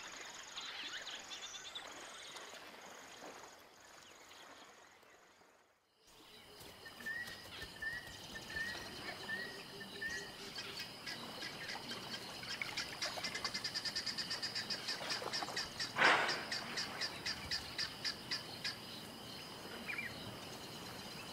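Dusk bush ambience of wild birds calling over a steady high trill. The sound fades out about six seconds in and returns with a short series of five repeated notes, then a fast, regular pulsing call and one louder call about two-thirds of the way through.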